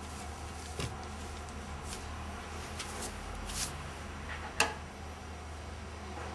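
Quiet room tone with a steady low hum, broken by a few light rustles and clicks of handling, the sharpest a single click about four and a half seconds in.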